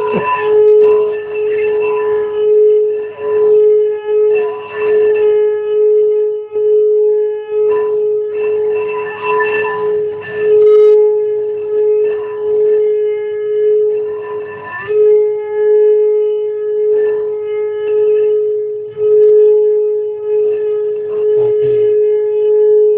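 A kuali (cooking pot or wok) giving off a strange, steady, horn-like hum on one pitch, swelling and fading every second or so without breaking off, with a brief wobble about two-thirds of the way through.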